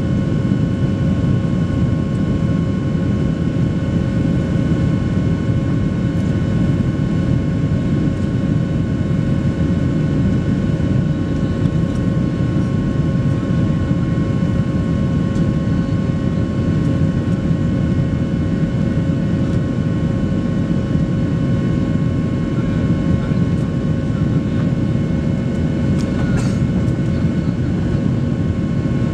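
Steady cabin noise of a Boeing 737 Next Generation airliner climbing after takeoff, heard from a window seat: a dense low rush of airflow and CFM56-7B engines running at climb power, with a few steady whining tones over it.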